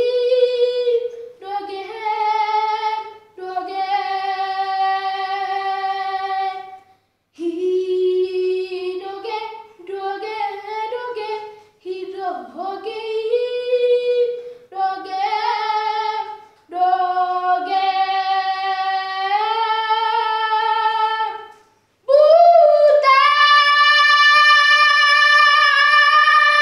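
A boy singing solo with no accompaniment, in phrases broken by short pauses, closing on a long, louder held note.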